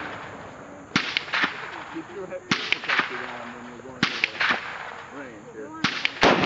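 Gunshots at an outdoor range: clusters of sharp cracks about every second and a half, then near the end a much louder, heavy shot with a long rolling echo.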